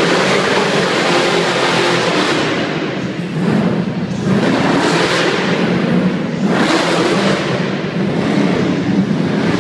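Off-road competition truck's engine revving hard as it runs a dirt course with jumps, the roar rising and falling in several surges with the throttle.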